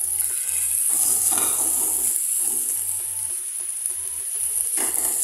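Raw chicken fillets sizzling in hot oil in a frying pan: a steady high hiss, with two brief knocks as more fillets are laid in with a fork.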